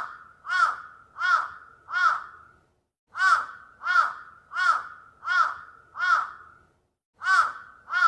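A crow cawing over and over in runs of about five harsh caws, roughly three every two seconds, with a pause of over a second between runs.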